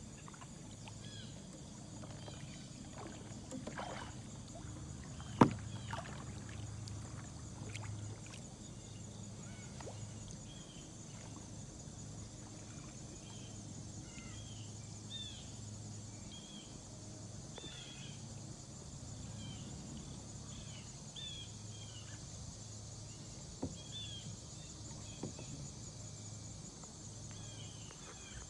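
Kayak paddling: the paddle dips into the creek and water drips and trickles off the blade, with a single sharp knock about five seconds in.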